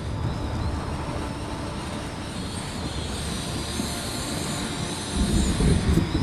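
Derecho windstorm wind roaring steadily, with a louder low surge about five seconds in.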